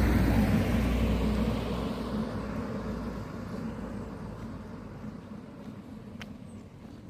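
A vehicle passing close and driving away, its engine and tyre noise loudest at the start and fading steadily over several seconds. A single sharp click sounds near the end.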